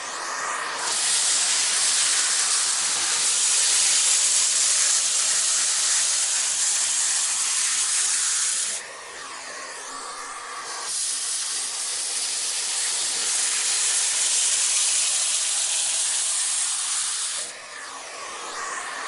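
Vacuum cleaner running: a loud rushing hiss of suction airflow that falls away sharply twice, about nine seconds in and near the end, then builds back up, with faint shifting whine in the quieter stretches.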